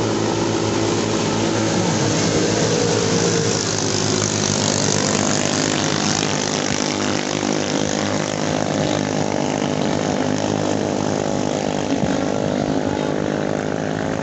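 Small racing longtail (ketinting) boat engines running hard at high revs: a steady, buzzing engine drone with a hiss over it, its pitch sinking slightly in the first few seconds.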